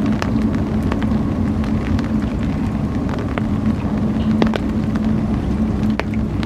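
A steady low engine hum over a low rumble, with scattered short, sharp ticks.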